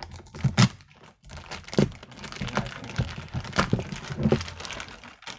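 Parcel packaging being opened and handled: plastic wrapping crinkling, with several sharp knocks and cracks.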